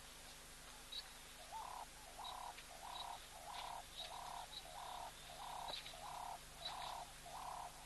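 An animal call repeated steadily: a short, low hooting note about one and a half times a second, starting about a second and a half in. Faint, brief high chirps sound here and there.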